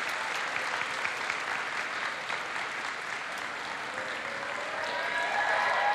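A large outdoor crowd applauding, the clapping thinning out over a few seconds as voices come in near the end.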